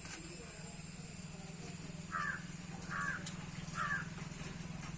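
A crow cawing three times, about a second apart, over a steady low hum.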